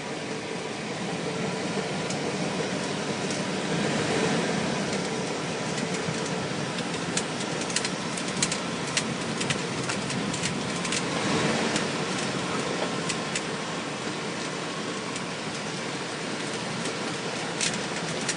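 2000 Cadillac Escalade driving slowly, with its running noise overlaid by irregular sharp clicking, several clicks a second, that comes in spells about a third of the way in and again near the end. The owner blames the transfer case, which had run dry of fluid, and it was later replaced.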